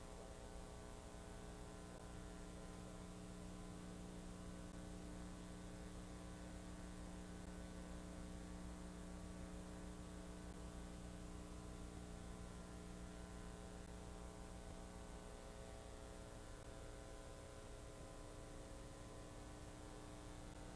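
Faint steady mains hum with a layer of hiss, unchanging throughout.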